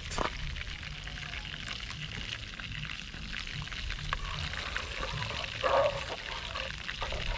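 Chicken sizzling steadily in oil in a frying pan over an open wood fire, with one brief louder sound just before six seconds in.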